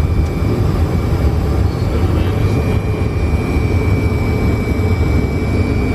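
Steady low rumble of a Fokker F100 jet's flight deck, with a thin high whine held throughout: engines and cockpit ventilation running.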